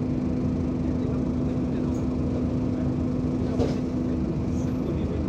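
Steady drone of a Scania OmniCity bus's diesel engine heard from inside the saloon, one held hum over a low rumble. A single light knock about three and a half seconds in.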